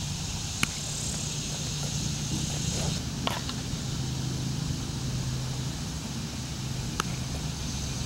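Steady low hum of a running engine, with three brief sharp clicks spread across it.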